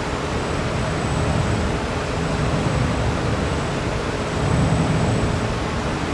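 Steady rushing noise of a bank of electric fans blowing wind across a wave test tank, with a faint steady hum, over the wash of irregular waves.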